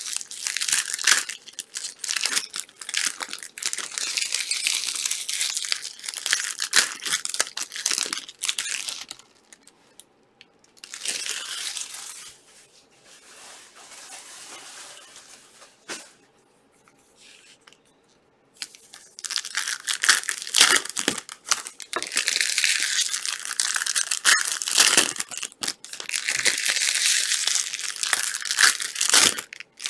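Trading card packaging being torn open and crinkled by hand. The rustling comes in bouts, with a quieter stretch from about nine to nineteen seconds in.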